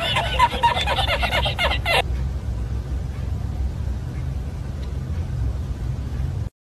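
A man's rapid, high-pitched fits of laughter for about two seconds, then a steady low rumble for the rest.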